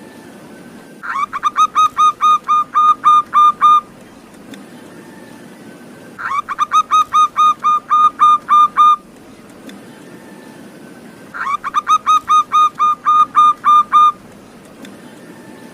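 Zebra dove (perkutut) song: three phrases about five seconds apart, each a quick rising opening note followed by a fast, even run of clear notes at a steady pitch.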